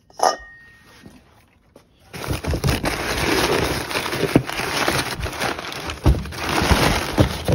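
A short metallic clink near the start, then from about two seconds in a hand rummaging through crumpled packing paper in a cardboard box: continuous loud rustling and crinkling with scattered knocks of parts against the box.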